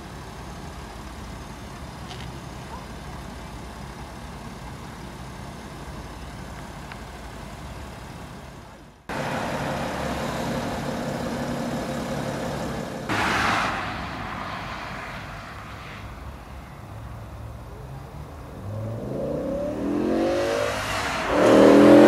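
Steady low car-engine rumble, then after a sudden cut louder road and engine noise. In the last few seconds a car's engine revs hard as it accelerates, its pitch climbing several times.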